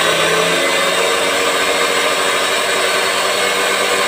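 Corded 1300-watt electric chainsaw running steadily at full speed without cutting: an even, loud motor whine.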